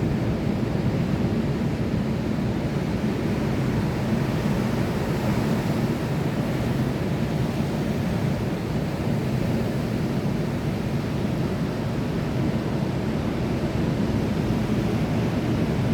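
Sea surf washing steadily, a continuous low rushing noise with no single wave breaks standing out.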